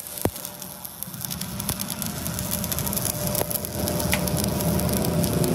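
Stick-welding arc burning on a broken crankshaft as it is built up with weld. A steady crackle that grows louder over the first couple of seconds.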